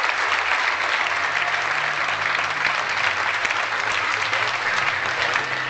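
Large audience applauding in welcome, a dense steady clapping with a low steady tone underneath from about a second in.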